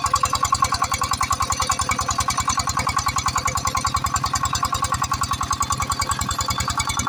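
Single-cylinder horizontal diesel engine, belt-driving an irrigation water pump, running steadily with an even rapid knock of about nine or ten firing beats a second, over a steady whine.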